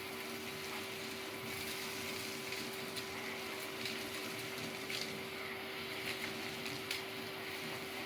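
Numatic SSMF350 industrial vacuum cleaner running steadily on its high setting, with a constant hum and a rushing hiss of air. Scattered short clicks and ticks come through the middle stretch, typical of debris being sucked up the hose.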